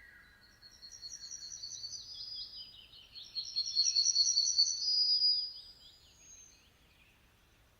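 Birds singing: a high, rapid trilled song with quick repeated notes, loudest a few seconds in, then fading. A short high whistle follows about six seconds in.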